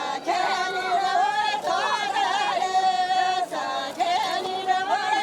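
Loud singing of an ornamented melody, with held, wavering notes broken by short pauses, as at a Kurdish wedding.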